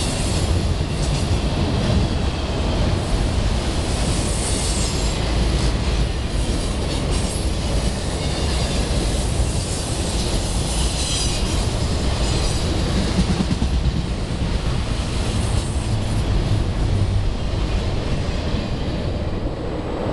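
Loaded autorack freight cars rolling past at about 47 mph: a steady rumble and clatter of steel wheels on rail. High-pitched wheel noise swells and fades several times.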